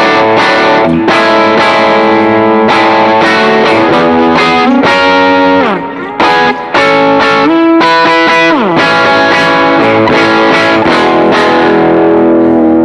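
Distorted electric guitar (Schecter PT Fastback) playing through stacked boost and overdrive pedals into a Tonex One's Vox AC30 amp capture at its highest-gain setting. It holds sustained notes and chords, with slides down the neck and a short break about six seconds in.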